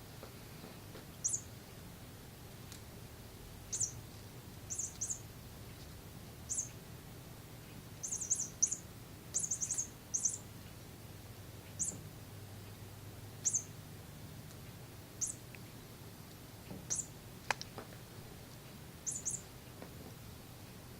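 A cat making short, very high-pitched squeaky chirps, singly and in quick pairs or triples at irregular intervals, with one longer squeal falling in pitch about three-quarters of the way through.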